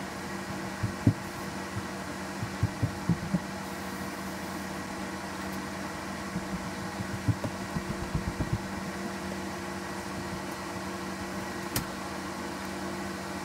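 Steady machine hum with several fixed tones, under clusters of soft, low knocks from a sneaker and paint brush being handled, about a second in, around three seconds and again from six to eight and a half seconds, and one sharp click near the end.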